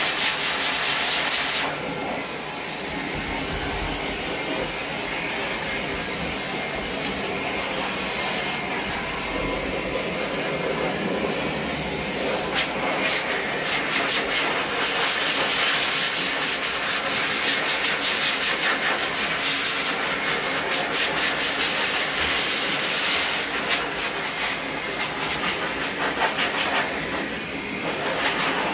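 Electric dog grooming clippers running steadily, buzzing and hissing as they cut through the coat.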